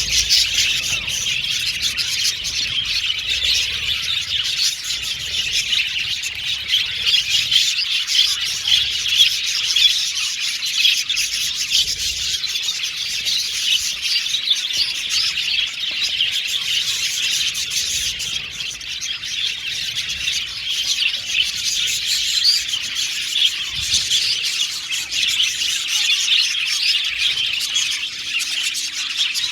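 A colony of budgerigars chattering together: many overlapping warbles, chirps and squawks.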